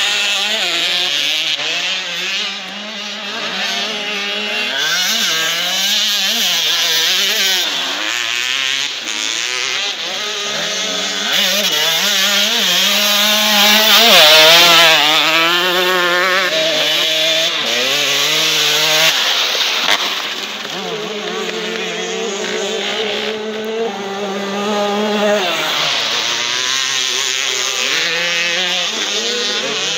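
Motocross dirt bike engines revving, the pitch climbing and then dropping again and again as the riders work the throttle and shift gears; loudest about fourteen seconds in as a bike passes close.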